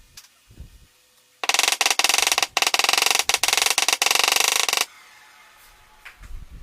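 Small power sander running briefly: a loud rattling buzz starts about a second and a half in and cuts off after about three and a half seconds. A few low knocks come before and after it.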